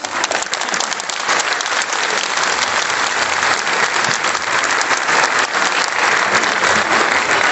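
Audience applauding: many hands clapping, swelling over the first second or so and then holding steady.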